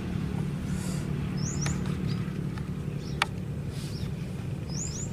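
A small bird chirping: short high notes that rise quickly, in a pair about a second and a half in and another pair near the end, with a few fainter chirps between. Under it runs a steady low hum, and a single sharp click comes about three seconds in.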